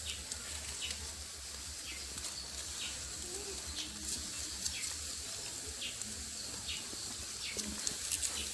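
Rice frying in a pot, a faint steady sizzle over a low hum, with short high chirps about once a second.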